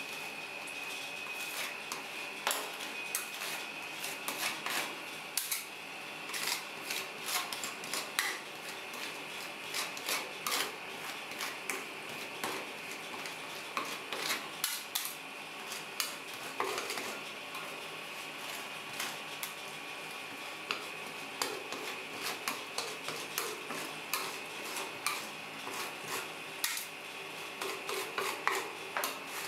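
Metal spatulas clinking and scraping on the stainless-steel cold plate of a rolled ice cream machine, in quick irregular strokes, as the ice cream mix is chopped and spread thin. A steady high whine runs underneath.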